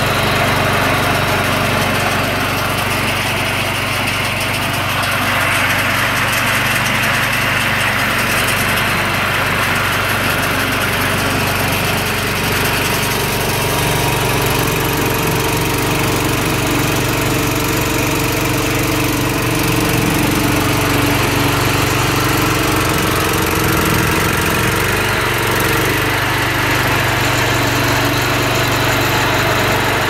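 Wheel Horse 520-H garden tractor's single-cylinder Kohler Magnum 12 engine running steadily while it drives a single-stage snowthrower, with the hiss of snow being thrown from the chute.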